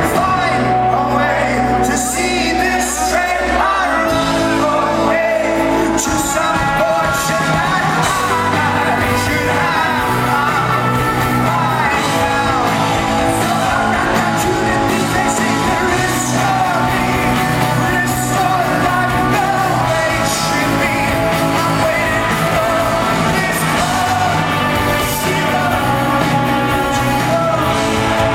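Rock band playing live with a lead singer, loud and continuous.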